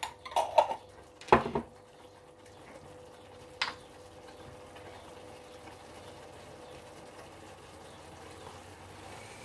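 Spice jars and a spoon knocking and clinking against the counter and pan: a few sharp knocks in the first second and a half and one more click between three and four seconds in. Under them, and alone after that, a faint steady hiss of the tomato and onion mixture simmering in a metal roasting pan.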